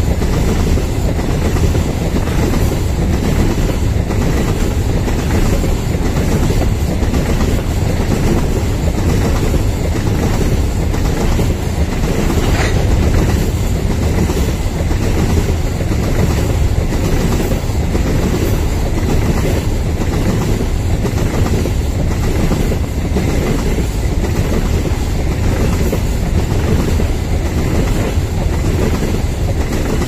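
Long loaded Babaranjang coal train of open-top wagons rolling past on the adjacent track. Its wheels make a steady rumble with a regular clickety-clack over the rail joints.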